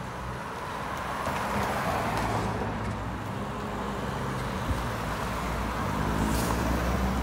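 Cars passing close by on a road: tyre and engine noise swells as one goes past about two seconds in and again as more pass near the end, over a steady low traffic hum. A single short knock a little past halfway.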